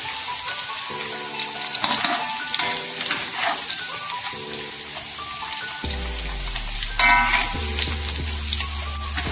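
Slices of beef tongue sizzling as they fry in hot oil in a wok, with a metal spatula and wire strainer scraping and knocking against the pan as the browned pieces are stirred and lifted out. A brief louder scrape about seven seconds in.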